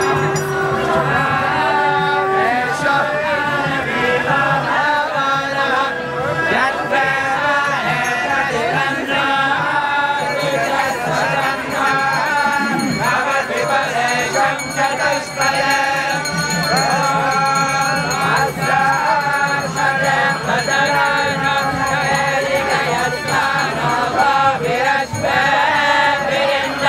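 A group of voices singing a devotional chant together, with music, as in a kirtan.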